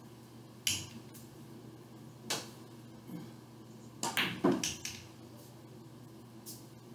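Pool cue striking the cue ball and billiard balls clicking together, with a ball dropping into a pocket. There are single sharp clicks about a second in and again after two seconds, then a quick cluster of several clicks around four seconds in, where the shot is played.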